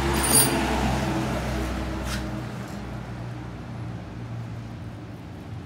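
A low engine hum that runs steadily, then fades away about two and a half seconds in, with two light metallic clicks over it.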